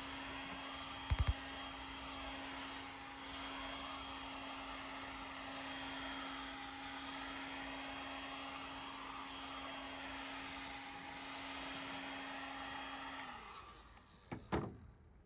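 Electric heat gun blowing steadily, its fan noise swelling and fading as it is swept over freshly sprayed anthracite paint to dry it in damp air. Near the end it is switched off and its hum winds down.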